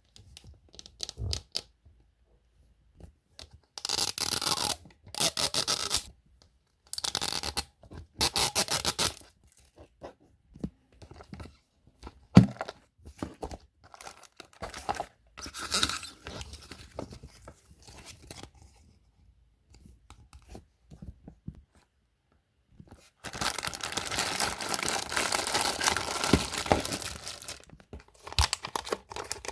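Packaging being torn and crinkled open by hand, in several short rips and then one longer stretch of tearing, with small clicks and handling noises in between and one sharp knock about twelve seconds in.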